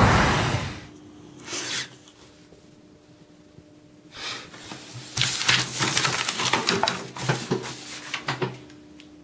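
Sheets of paper being handled on a desk: a few seconds of rustling and scraping with sharp little clicks, over a faint steady hum. It opens with a loud, short rushing sound that dies away within a second.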